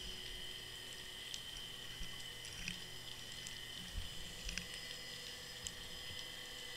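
Underwater sound picked up by a camera sitting on the seabed: a steady high hum with scattered faint clicks and a few soft low knocks.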